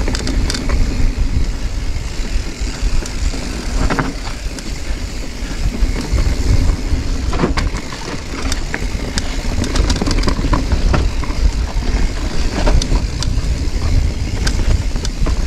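Downhill mountain bike rolling fast over a rocky trail, its tyres, chain and frame giving off a run of sharp knocks and rattles as it hits rocks, over a constant heavy rumble of wind buffeting the microphone.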